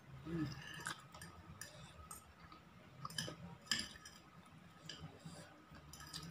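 Metal fork clinking and scraping against a plate as it gathers fried instant noodles: a handful of short, sharp clinks, the loudest a little under four seconds in.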